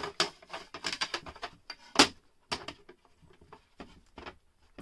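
Hard plastic PSA graded-card slabs clicking and knocking against each other and the table as gloved hands shift them, with one sharper click about two seconds in.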